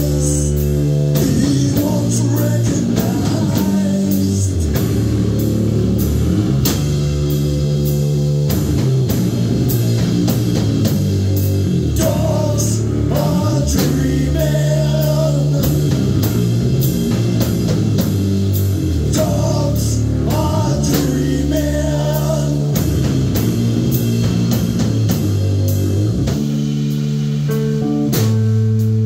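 Live rock band playing loud and steady: electric bass guitar and a Gretsch drum kit keeping a regular beat, with a sung vocal line coming in at times.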